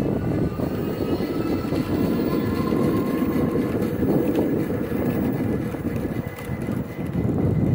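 Riding noise from a fat-tire electric bike at about 21 mph: wind buffeting the microphone and the fat tires rumbling over boardwalk planks. A faint whine from the Bafang rear hub motor rises slowly in pitch during the first few seconds.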